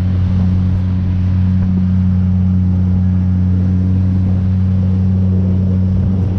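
Boat's outboard motor running steadily under way, with a constant low engine hum and water and wind noise above it.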